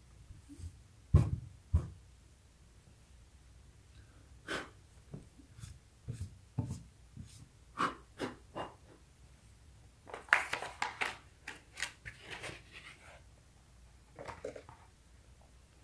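Quiet handling noises on a skateboard deck being readied for grip tape: two dull knocks about a second in, then scattered light taps and hand rubbing, and a spell of rustling near the end as the paper-backed grip tape sheet is handled.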